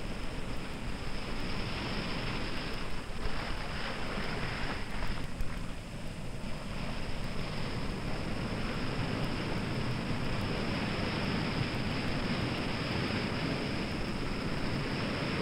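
Sea surf washing over a rocky shore: a steady rushing noise that swells and eases slightly, with a thin steady hiss above it.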